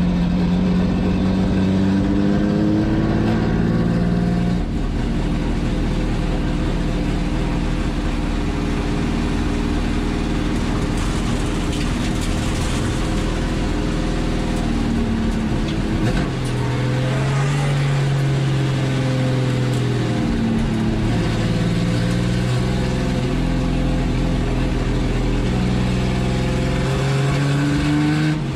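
Chevrolet Opala 250's straight-six racing engine at full race pace, heard from inside the cockpit: the engine note climbs under acceleration and steps down with each gear change, falls to a lower note about halfway through, then climbs again in steps.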